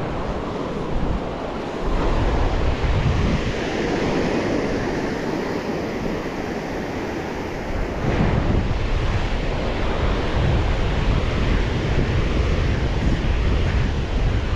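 Surf washing onto a beach, with strong wind buffeting the phone's microphone in low rumbling gusts that grow louder a little past halfway.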